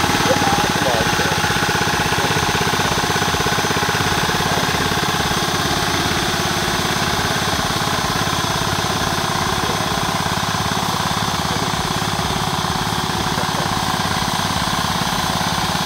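Engine of a crop sprayer running steadily at constant speed while it sprays.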